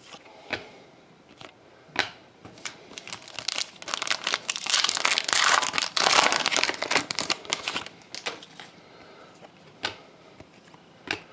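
Foil wrapper of a Panini Prizm football card pack crinkling and tearing as it is opened by hand, the crinkling filling the middle of the stretch. Scattered short clicks and taps of cards being handled come before and after.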